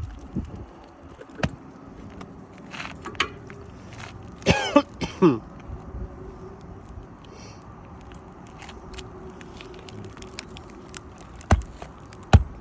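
Hand-tool work on an asphalt shingle roof: scattered taps and knocks as shingles and nails are pried loose, with a short squealing screech falling in pitch about five seconds in, and two hard knocks near the end.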